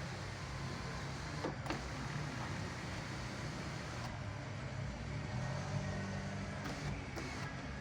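A steady low vehicle-like rumble, with two light clicks about one and a half seconds in.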